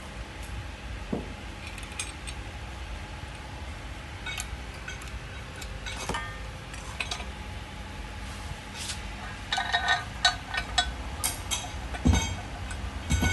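Steel parts clinking and knocking as pins and a threaded rod are handled and fitted into a steel bracket. Scattered single clinks come first, then a quick run of clinks about two-thirds of the way through and a heavier knock near the end.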